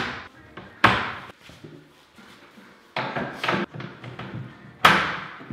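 Kitchen cabinet door knocking against the cabinet box as it is handled and hung: a sharp knock about a second in, a short run of clattering about three seconds in, and another sharp knock near the end.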